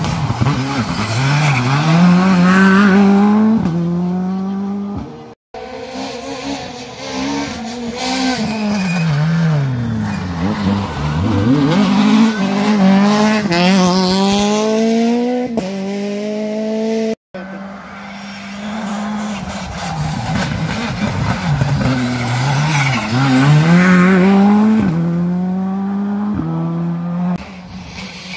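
Rally cars taking a hairpin one after another, three passes in all, each cut off abruptly. Each engine's note drops as the car brakes and downshifts into the bend, then climbs in quick steps through the upshifts as it accelerates away.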